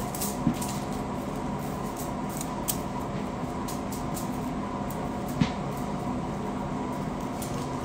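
Steady hum of a wall-mounted room air conditioner, with three faint clicks: about half a second in, near the middle, and about two-thirds of the way through.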